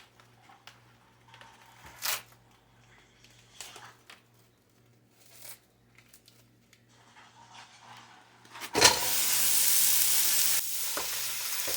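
A few faint taps and rustles, then, about three-quarters of the way in, ground beef goes into the hot pot and starts to sizzle steadily as it begins to brown.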